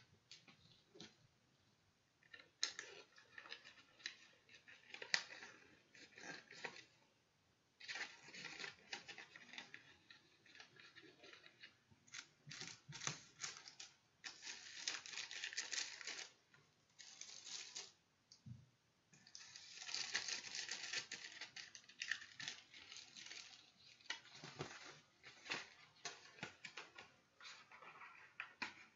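Paper inserts and a plastic CD case being handled: rustling and light clicks in stretches of a few seconds, with short pauses between them.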